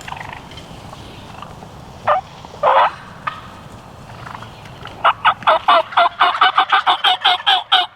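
Wild turkeys calling: two short single calls about two seconds in, then from about five seconds in a long, fast run of loud notes, about five a second.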